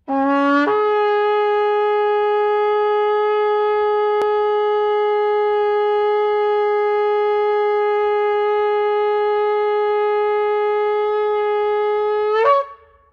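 Long curved animal-horn shofar sounded in one long blast: it opens on a short low note that jumps up to a higher note within the first second, holds that note steady for about twelve seconds, and breaks off with a brief upward crack at the end.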